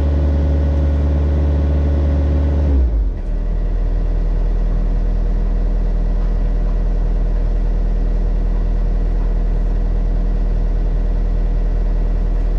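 Mini excavator's diesel engine running steadily. Its speed drops to a lower, steady pitch about three seconds in.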